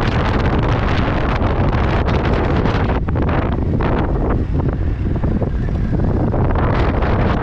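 Wind rushing over a helmet-mounted camera microphone on a moving motorcycle, with a steady low rumble of engine and road noise underneath. The high hiss thins a little about three seconds in.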